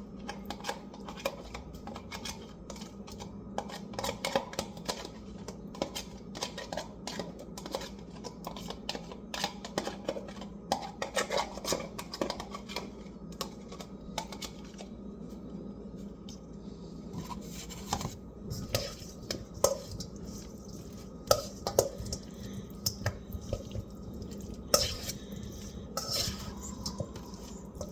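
Utensil clinking and scraping against a dish while a thick sauce is stirred and worked. The taps are quick and frequent at first, then sparser and sharper.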